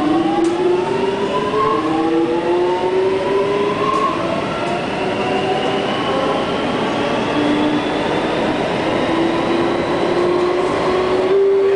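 SBS Transit C751A metro train accelerating away from a station, heard from inside the car: the traction motors whine in several tones that climb steadily in pitch over constant wheel and running noise, levelling off near the end.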